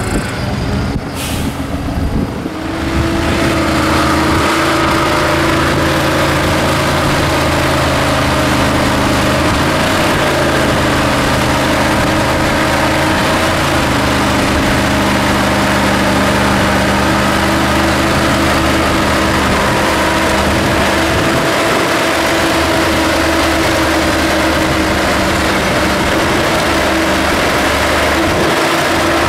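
Engine of a ZIL-131 6x6 truck running steadily at low speed as the truck crawls through a muddy trial obstacle. It grows louder about two to three seconds in, and its pitch dips and recovers slightly a few times.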